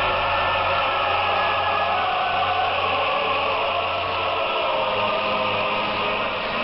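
Choral music heard over a shortwave radio broadcast, narrow and muffled, with nothing above the receiver's narrow bandwidth.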